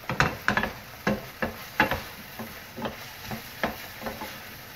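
Wooden spatula stirring and scraping chicken mince and diced vegetables around a frying pan: a string of short, uneven knocks and scrapes, about two or three a second, loudest in the first two seconds, over a low sizzle of the food frying.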